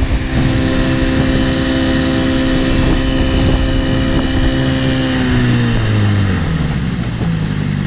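1975 Johnson Sea-Horse 6 hp two-stroke outboard motor running steadily at full throttle, then slowing about five seconds in, its pitch falling to a lower, slower run.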